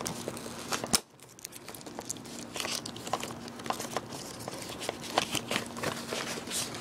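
A small cardboard retail box being handled and opened: scattered rustles, scrapes and light clicks of the cardboard and packaging, with one sharp click about a second in.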